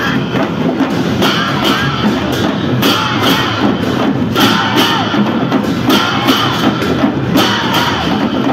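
Newar dhimay drums beaten with cymbals clashing over them, a crash about once a second, with excited voices shouting over the playing.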